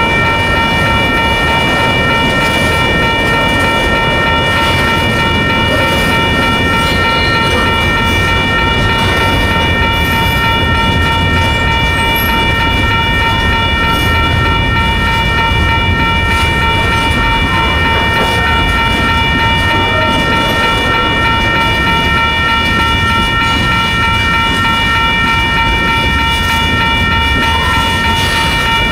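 Freight train cars rolling past on the rails, a steady low rumble of wheels on track. Over it runs a continuous high-pitched whine of several steady tones that neither rises nor falls.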